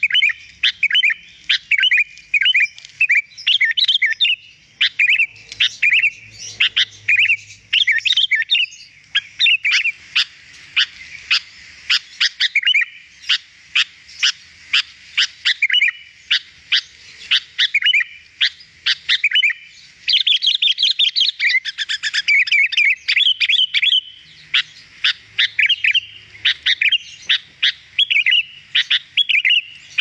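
Sooty-headed bulbul (kutilang) singing without pause: quick strings of short whistled chirps with brief gaps, and a denser, busier run of song about two-thirds of the way through.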